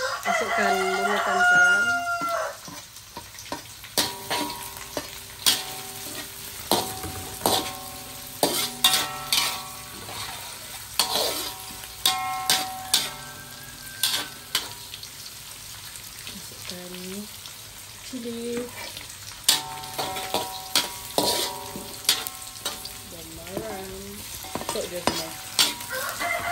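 Metal spatula clinking and scraping against an aluminium wok while sliced lemongrass, shallots and garlic sizzle in hot oil. A rooster crows loudly at the start, and faint calls come in again about two-thirds of the way through.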